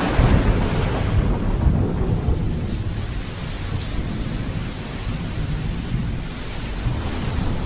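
Thunderstorm: a peal of thunder right at the start rolls off into a long low rumble, over steady heavy rain.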